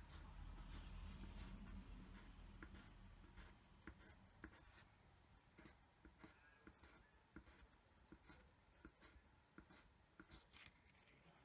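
Faint pencil scratching on paper in many quick, short strokes as eyelashes are drawn, with a low rumble over the first few seconds.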